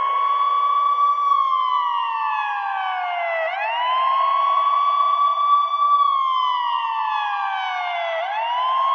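Ambulance siren sounding a slow wail. The pitch holds high, glides down over about two seconds, then swoops quickly back up and holds again. This happens twice.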